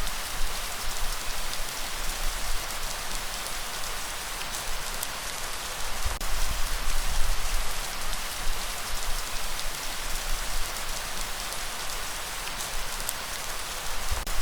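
Steady light rain falling, a dense patter of drops, under a low rumble of breeze that swells and eases about six seconds in.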